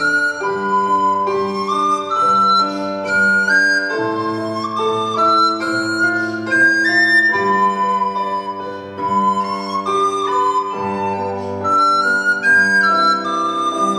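Recorder playing a melody with piano accompaniment: held notes climbing step by step in short phrases over sustained piano chords.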